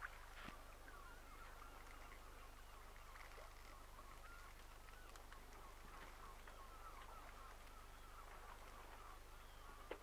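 Faint, continuous chatter of a flock of waterbirds, many short calls overlapping.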